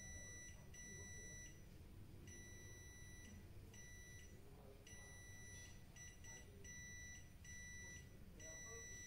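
Clamp multimeter's continuity beeper giving a series of faint, high-pitched beeps of uneven length, starting and stopping as the test probes touch and leave the pins on a CRT tube's neck. Each beep signals continuity between the pins being tested, the check for shorted or open electrodes in the tube.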